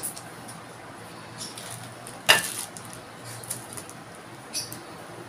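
Small plastic spray bottle being handled and squirted to wet the hands for smoothing clay balls: a few short spritzes, the loudest and sharpest about two seconds in.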